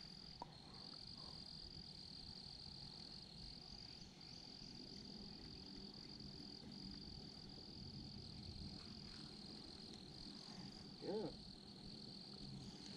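Faint, steady high-pitched insect chorus trilling continuously at the lakeside, with a brief pitched call about eleven seconds in.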